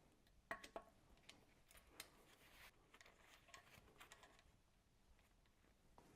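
Near silence with faint scattered metallic clicks from a hand wrench turning the timing back-plate bolts.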